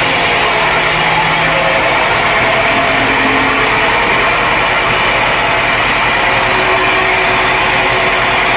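Sawmill machinery running steadily: a loud, even drone with several steady tones.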